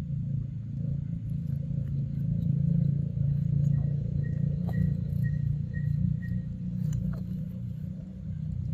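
A steady low rumble, with a faint high chirp repeated about half a dozen times in the middle.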